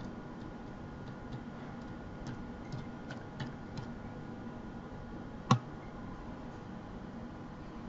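A series of faint computer-keyboard keystrokes over the first four seconds, then one louder mouse-button click about five and a half seconds in.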